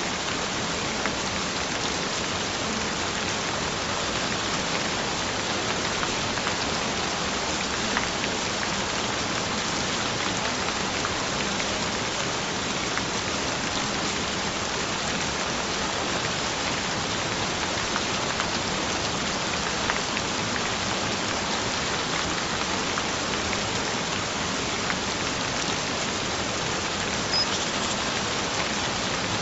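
Steady gentle rain falling, with scattered individual drops ticking through the even hiss.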